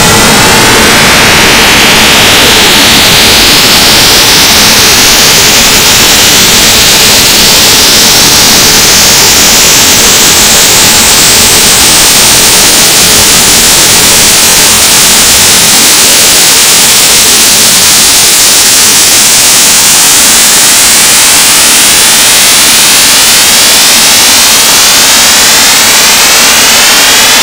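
Loud electronic noise drone from the DIN Is Noise software synthesizer, a dense hiss with many stacked tones sliding upward in pitch. A second wave of rising sweeps builds up over the second half.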